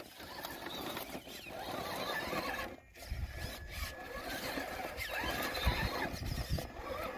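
Traxxas TRX-4 Sport RC rock crawler climbing a hill: its electric motor and gears whine, the pitch rising and falling with the throttle, over the scrabble of tyres on dirt and rock and a few low knocks.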